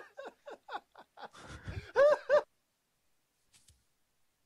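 A man's manic, put-on laughter over a telephone line: a quick string of short pitched yelps, ending in two loud arching whoops about two seconds in, then the line falls silent.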